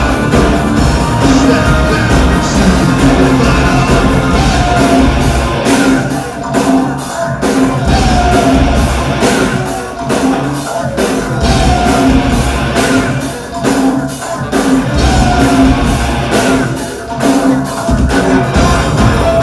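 A live industrial metal band playing loudly, with distorted electric guitars, a drum kit keeping a steady beat and synthesizers. The bass drops out for a moment several times.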